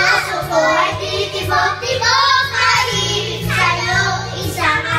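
Young girls singing into microphones over a backing music track with a steady bass.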